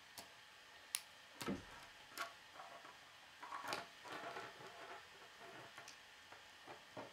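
Plastic K'nex rods and connectors clicking and snapping together as they are put together by hand: scattered sharp clicks, with a denser run of small clicks and rattling a little past halfway.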